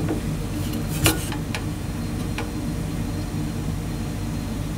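Vaillant ecoTEC gas boiler running with a steady low hum, with a few sharp clicks as its control-panel buttons are pressed, the loudest about a second in.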